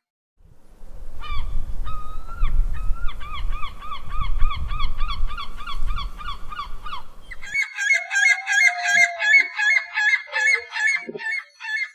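Gulls calling: a long run of rapidly repeated yelping notes, about three or four a second, over a low rumble. About seven and a half seconds in the rumble stops and a second recording of higher, faster gull calls follows.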